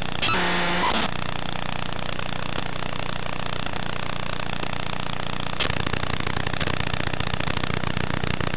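Steady electronic buzz on the analog FPV video link's audio channel, recorded by the goggles with the quad powered but disarmed and the motors still. A short pitched beep sounds at the start, and about five and a half seconds in the buzz turns heavier and lower.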